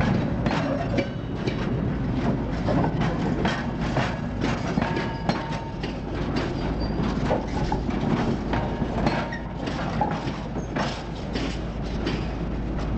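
Loaded freight wagons rolling past: irregular clicks and clanks of the wheels over rail joints, with a steady low rumble underneath.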